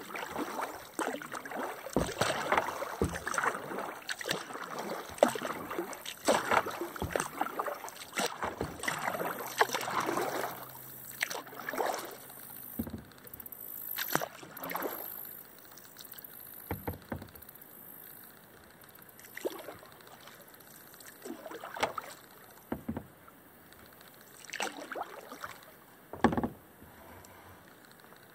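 Kayak paddle strokes: the blades dipping and pulling through calm water with splashing and dripping, alternating side to side, coming close together at first and more spaced out in the second half, with a few sharp knocks of the paddle.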